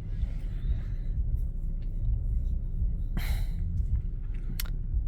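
Low, steady rumble of a vehicle in stop-and-go traffic, with a brief hiss about three seconds in and a sharp click near the end.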